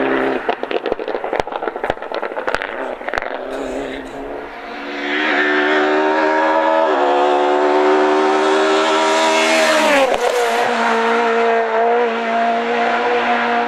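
Rally cars at speed on a tarmac stage. A passing car's engine gives way to a run of sharp, irregular cracks and pops. Then a second rally car comes in at full throttle, its engine note climbing and stepping once at a gear change; it passes close by, the pitch dropping sharply about ten seconds in, and runs on steadily as it goes away.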